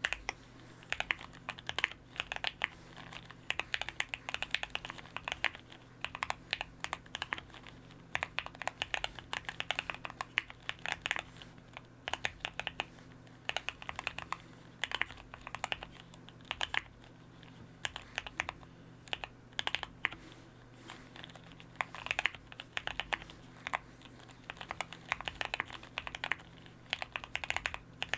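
Typing on a QK65 mechanical keyboard with factory-lubed Gateron Oil King linear switches and PBT keycaps in an all-foam build: quick runs of keystrokes broken by short pauses.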